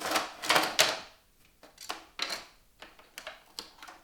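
Small PC-build hardware (screws, standoffs and their box) clattering and clicking as it is handled: a loud rattle in the first second, then several short separate clicks.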